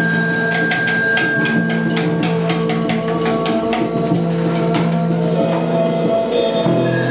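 Live improvised experimental music: steady held droning tones under a run of quick, irregular drum and cymbal strikes, which thin out after about five seconds.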